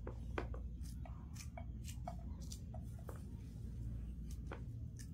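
Okra being cut by hand with a small kitchen knife: short irregular clicks, about two or three a second, as the blade goes through the pods and pieces drop into a plastic bowl, over a steady low background rumble.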